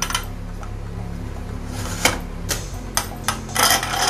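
Metal clicks and clinks from a Premier aluminium pressure cooker's lid and whistle weight being handled. A few sharp clicks come about two to three seconds in, then a short run of clinks near the end as the weight is set onto the vent pipe, all over a steady low hum.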